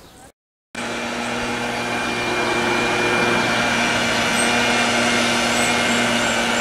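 A steady machine drone with a loud rushing hiss over it, like a motor-driven blower. It cuts in abruptly under a second in, after a brief silent gap, and holds level.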